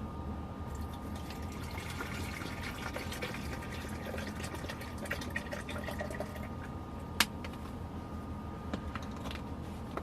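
Water being poured into a small kettle, splashing and gurgling as it fills, with a sharp click about seven seconds in.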